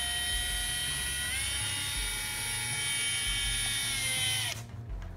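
Cordless drill running with a steady motor whine that rises slightly in pitch about a second and a half in, then stops suddenly near the end.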